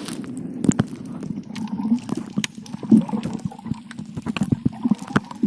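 Water sloshing and splashing, with many irregular knocks and clicks.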